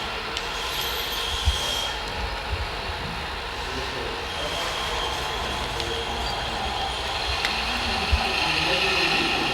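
Whine of the electric motors, gearboxes and hydraulic pumps of radio-controlled scale construction machines at work, with pitch shifting as they run, and two short low thumps, one about a second and a half in and one near the end.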